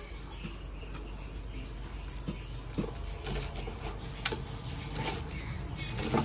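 Metal tongs and a kitchen knife clicking and scraping against each other and the chopping board while cutting grilled pork belly: several short sharp clicks spread over a few seconds, over a steady low background noise.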